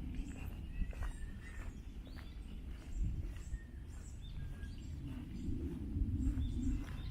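Short bird chirps scattered over a steady low rumble of walking footsteps and handheld-camera noise.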